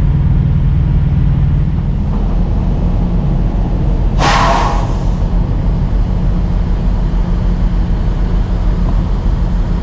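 Steady low engine-like rumble of a vehicle running nearby. About four seconds in, a short rush of noise comes as motor oil is poured from a jug into a new oil filter.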